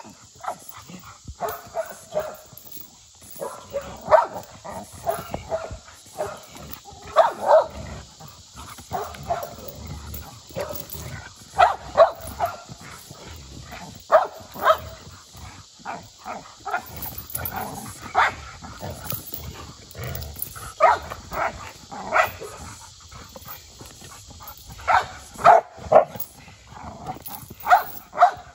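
Bully-breed dog barking over and over in short, sharp, irregular bursts, worked up by a toy held above it.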